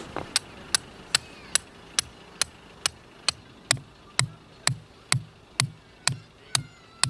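A hammer steadily driving a metal tent peg: about two sharp, ringing strikes a second. From about halfway in, each strike also carries a deeper thud.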